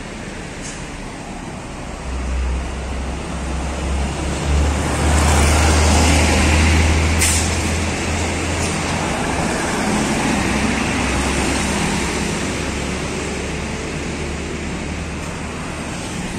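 Diesel engine of an intercity coach bus running as the bus manoeuvres, its rumble swelling from about two seconds in, with road traffic behind it. A short sharp hiss of the air brakes comes about seven seconds in.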